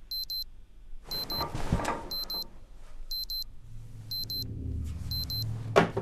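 Digital alarm clock beeping in quick high-pitched pairs, about once a second. A burst of rustling comes about a second in, and low music enters after three and a half seconds, with a sharp knock near the end.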